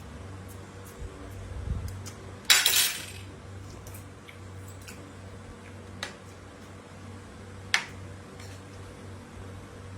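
Plates and cutlery clinking and knocking during a meal, with one louder clatter about two and a half seconds in and a couple of sharp clicks later, over a steady low hum.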